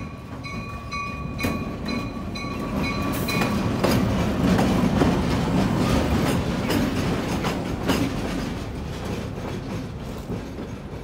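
Reading and Northern diesel switcher locomotive rolling past: the engine runs and the wheels click over the rail joints, loudest about four to five seconds in. For the first three seconds or so a bell rings in steady strokes.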